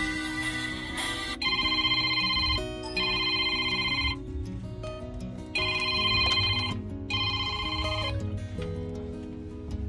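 A phone ringing with a trilling ringtone in two double rings (ring-ring, pause, ring-ring), over background music.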